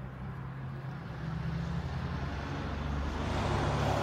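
Low engine hum of a motor vehicle, growing gradually louder.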